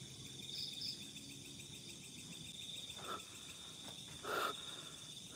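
Faint steady trill of crickets, a high pulsing tone, with a couple of short soft noises about three and four seconds in.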